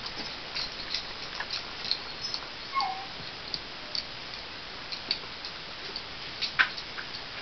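Small dogs playing on a hard floor: a scatter of light clicks and taps, likely their nails. About three seconds in, one dog gives a short whine that falls in pitch.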